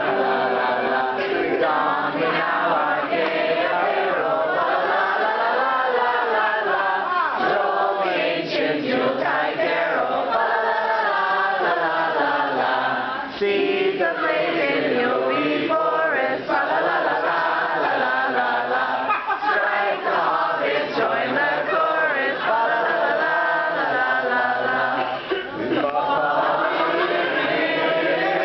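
A group of voices singing a Christmas carol together, sing-along style.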